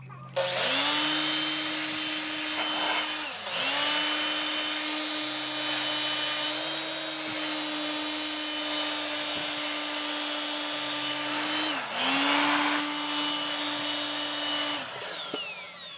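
Vacuum cleaner running with its hose nozzle against a perforated metal engine air filter element, sucking out dust; a steady motor whine with a hiss of air. The motor note dips and recovers twice, and near the end the vacuum is switched off and winds down.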